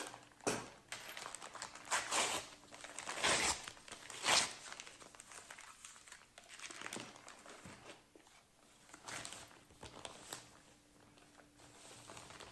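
Packaging crinkling and rustling in irregular bursts as cross stitch kits are handled and rummaged through, busiest in the first few seconds and sparser after.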